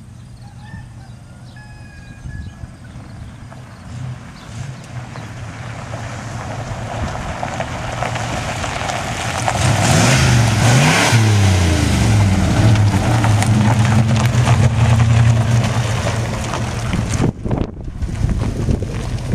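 Ford pickup's 351 high-output V8 through a new MagnaFlow muffler, approaching and getting steadily louder, at its loudest as the truck comes close about ten seconds in, then running steady nearby. Wind buffets the microphone near the end.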